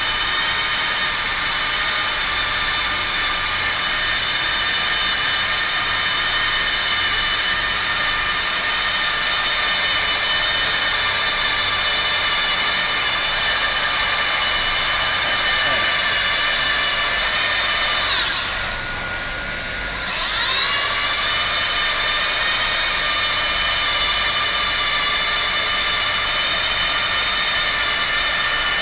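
Hot-air plastic welding gun running steadily, its blower motor giving a high whine. About 18 seconds in, the whine sinks sharply in pitch and gets quieter, then climbs back to full speed about two seconds later.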